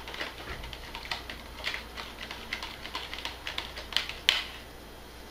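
Metal utensil clicking and tapping against a thin plastic bowl while stirring a watery marinade: a run of irregular light clicks, a few a second, ending in one louder tap just over four seconds in.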